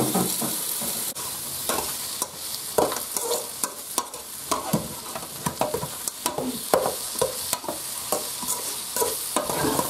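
Rabbit and pork pieces sizzling steadily as they brown in a metal pot, with a metal spoon scraping and knocking against the pot in repeated irregular strokes as the meat is stirred.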